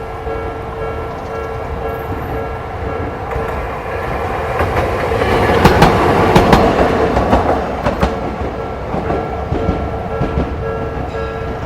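Japanese level-crossing warning bell ringing steadily while a streetcar passes. The tram grows louder to a peak a little past the middle, its wheels clacking over the rail joints, then fades as the bell keeps ringing.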